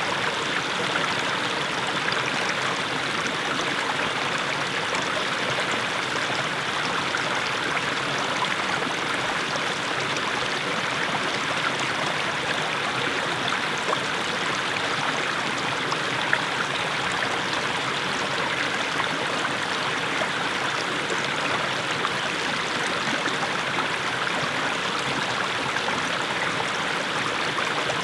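Small mountain stream splashing over low steps of mossy stones, a steady, even babble of running water.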